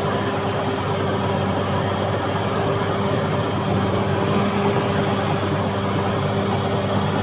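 CAT D6R XL bulldozer's diesel engine running steadily under load, with a low even drone.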